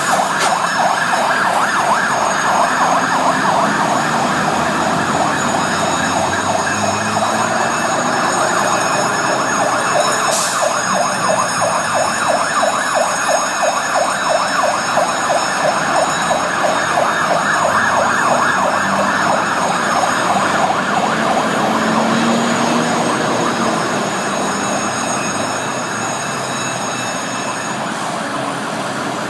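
Fire engine siren on a Magirus Snorkel hydraulic platform sounding a rapid, even yelp as the truck turns out on an emergency call. It grows slowly fainter in the last few seconds as the truck drives off.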